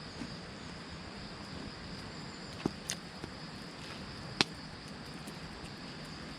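Quiet outdoor ambience with a steady high insect drone, broken by a few short sharp clicks or pops, the loudest about four and a half seconds in.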